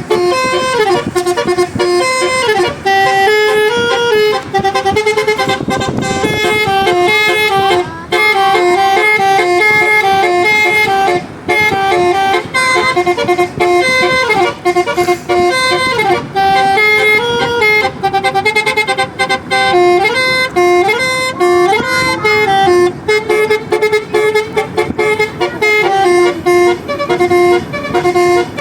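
Basuri telolet horn, a multi-tone musical vehicle horn, playing a fast melody of stepping notes with occasional pitch slides and brief breaks between phrases.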